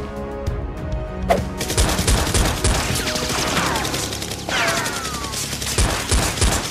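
Background music for about the first second and a half, then a quick sweep into rapid automatic gunfire sound effects laid over a Nerf blaster fight. The shots come fast and keep on, with a few falling whistles around the middle.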